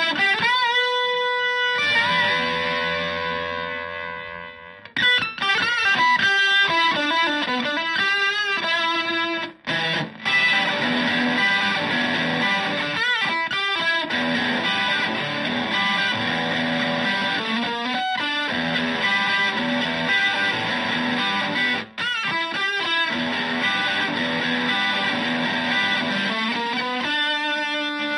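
Fender Stratocaster electric guitar played through a Zonk Machine fuzz pedal into a Fender Twin-style amplifier. It opens with a held, bent note, then a chord left to ring and fade, then runs of lead lines full of string bends and vibrato, with two brief breaks.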